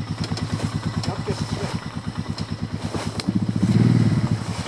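ATV engine running at low speed with an even, pulsing beat; it is briefly throttled up, running louder for about a second from about three and a half seconds in, then eases back.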